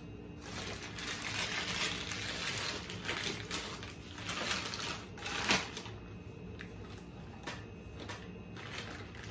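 Rustling and scraping as buttercream icing is worked onto a cake layer, swelling to a sharp peak about five seconds in, followed by a few light clicks and taps.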